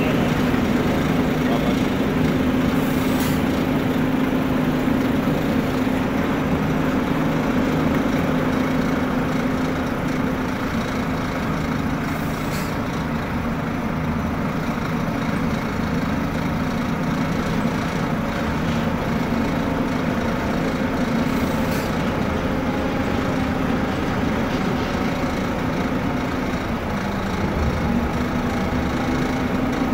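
Heavy-haul transporter's diesel engine running steadily with a low hum, with a brief hiss about every nine seconds.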